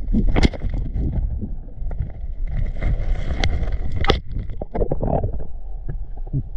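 Underwater noise heard through a diver's camera: a steady muffled low rumble of water with scattered clicks and knocks, the sharpest about half a second and about four seconds in, as the diver moves along the rocks and grabs a crayfish.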